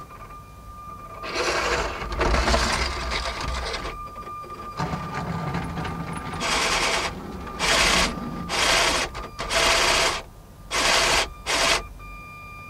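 Lego Powered Up train motors running and plastic wheels rattling along the track. The noise comes and goes in loud bursts, a longer run in the first half and several short bursts about half a second each near the end.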